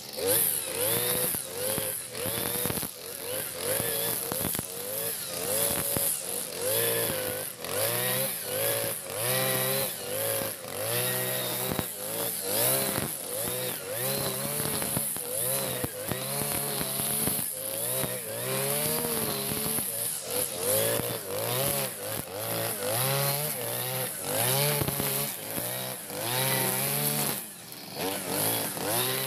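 Freshly serviced backpack brush cutter's small engine running hard, its pitch rising and falling over and over as the throttle is worked while the cutting head goes through tall weeds.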